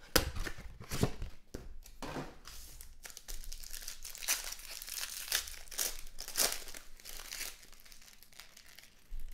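Gold foil wrapper of a trading-card pack crinkling and tearing as it is opened by hand, in irregular bursts of crackle.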